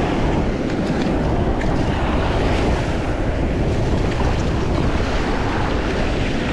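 Surf washing in over a shallow reef flat, a steady rush of water with wind buffeting the microphone.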